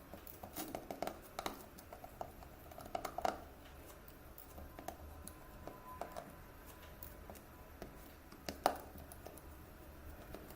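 Light clicks, taps and rustling of hands handling small phone parts, with a sharper click near the end.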